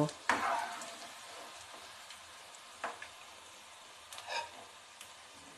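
Oil sizzling steadily as chow pakoras shallow-fry in a pan, with a few knocks and scrapes of a slotted metal spatula as the done fritters are lifted out. There is a sharp tap just under three seconds in and a short scrape about four seconds in.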